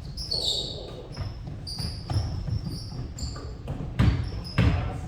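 Basketball bouncing on a gym floor, a few separate thuds with the loudest near the end, among short high squeaks of shoes on the court.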